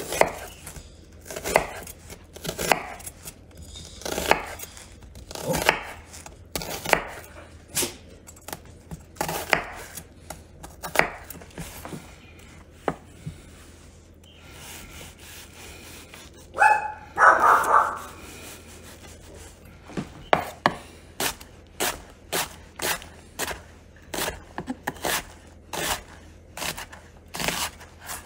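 Chef's knife chopping onion on a wooden cutting board: scattered single cuts at first, then steady dicing strokes about two a second over the last third. A brief louder sound comes a little past the middle.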